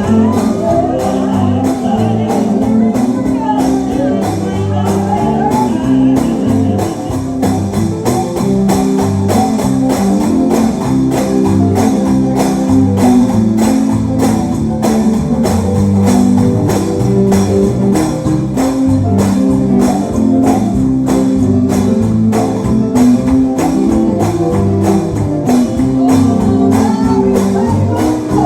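Live gospel band playing an upbeat song, a tambourine keeping a steady beat over guitar and bass.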